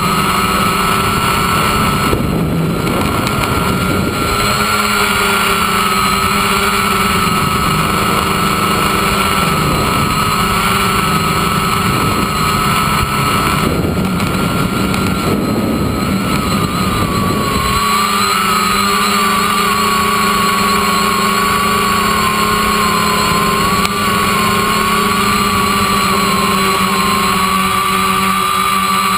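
Quadcopter's electric motors and propellers whining steadily, heard close up from the frame, the pitch wavering up and down with throttle. A rushing noise joins in twice, a couple of seconds in and for a few seconds around the middle.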